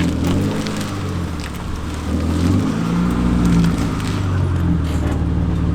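Car engine running at low revs as the car is inched forward into position, its pitch rising and falling with light throttle.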